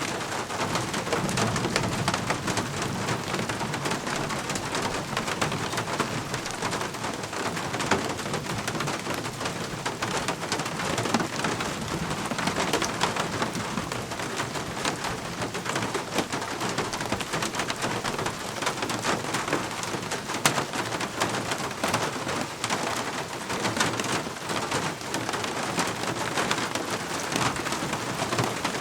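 Steady rain falling: an even, continuous hiss dotted with many small drop ticks.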